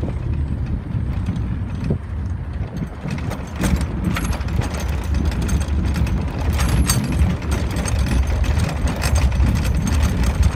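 Vehicle driving on a gravel road: a steady low rumble with dense crunching and rattling from loose stones under the tyres.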